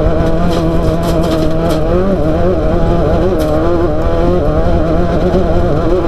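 Off-road race car engine running hard at fairly steady revs, its pitch wavering up and down, with a few short sharp rattles or knocks from the car about a second in and again past the middle.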